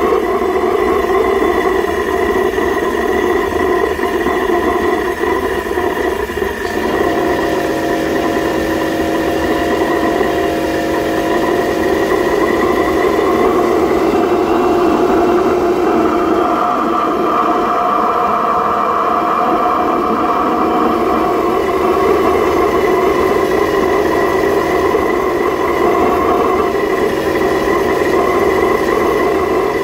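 Waste-oil burner running, its flame firing steadily into the firebox with an even, continuous noise. About seven seconds in, a steady hum joins it.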